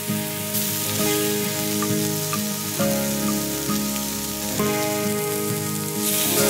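Beef steaks sizzling on a hot griddle plate over a wood fire, with background music playing.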